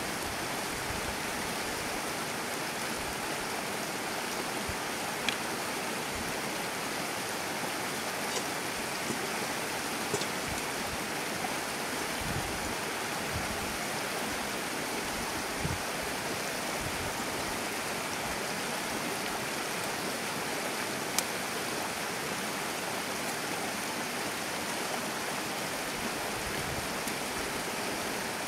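Steady rushing of a stream, with a few light clicks and taps as cooked rice is scooped from a wicker basket into a steel bowl with a spatula.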